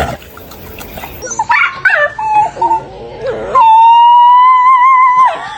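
Dog vocalising: a string of short whines and yips that slide up and down in pitch, then one long, steady, high howl held for nearly two seconds, the loudest sound.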